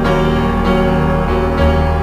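Background music led by piano or keyboard, sustained chords changing every half second or so.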